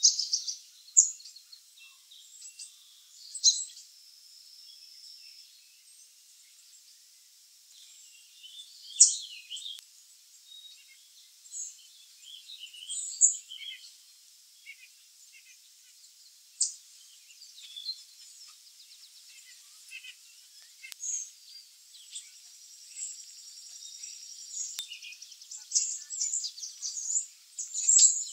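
Black-capped chickadees calling: many short, high-pitched notes scattered throughout, with a buzzier run of notes a few seconds in and again near the end.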